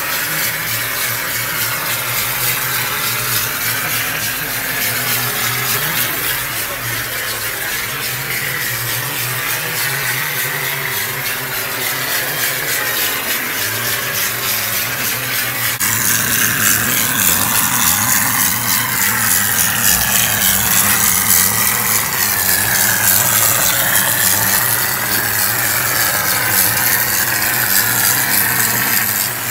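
Plastering machine running steadily: a constant machine hum with a hiss over it, growing louder and brighter about halfway through.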